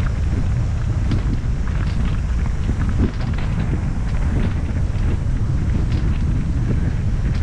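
Wind buffeting the microphone of a camera moving fast down a dirt trail, a steady low rumble, with light crunching and rattling from bike tyres and frame over the packed dirt and pine needles.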